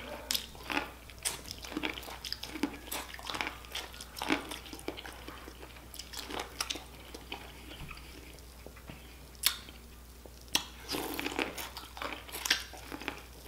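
A person biting and chewing corn on the cob, with many short, irregular crunches and mouth clicks. It goes quieter around the middle, broken by two sharp clicks, then busier chewing near the end.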